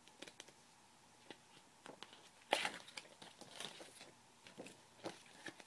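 Paper pages of a picture book being turned and the book handled: a scatter of faint rustles and clicks, the loudest about two and a half seconds in and another about five seconds in.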